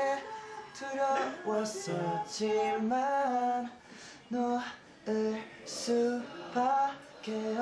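A young man singing unaccompanied: a melody in short phrases with brief pauses between them.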